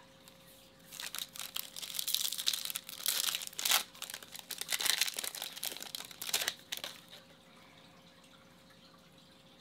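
Foil wrapper of a Topps Chrome baseball card pack being torn open and crinkled by hand. It makes a dense crackling rustle from about a second in that dies away about seven seconds in.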